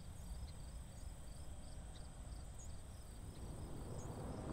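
Faint, high chirping like crickets, about four or five chirps a second, over quiet background hiss. A low rushing noise begins to swell near the end.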